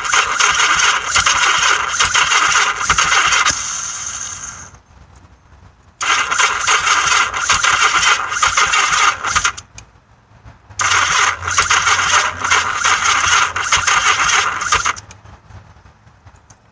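Yamaha XS1100 motorcycle's electric starter cranking its four-cylinder engine in three attempts of about four seconds each, with short pauses between, and the engine not catching. The owner puts the no-start down to a weak battery and a part installed incorrectly.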